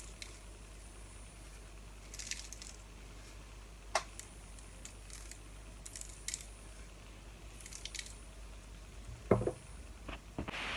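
Pastry brush dabbing egg wash onto brioche dough: soft, faint wet swishes every couple of seconds, with a few light clicks near the end.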